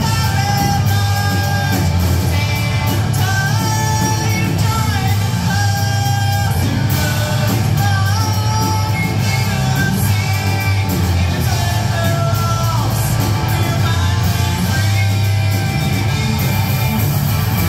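Live rock band playing: a woman singing lead over electric guitars, bass guitar and drums, with held, sung vocal lines over a heavy, steady low end.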